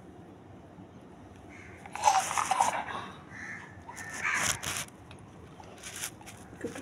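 A desi puppy yelping, loud and sharp about two seconds in and again more weakly about four seconds in, as a sore spot on its skin is handled. The owner takes the spot for a tick, or else a wound.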